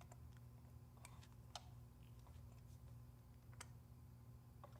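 Near silence with a few faint, scattered metallic clicks from a 5 mm Allen key seating in and turning the handlebar stem faceplate bolts as they are snugged, over a low steady hum.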